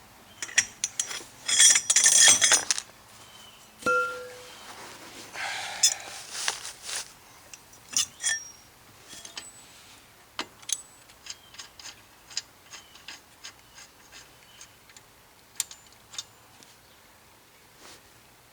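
Metal hand tools clinking and rattling against the axle hub nut, with a dense rattle about two seconds in and a run of light clicks about two a second later on.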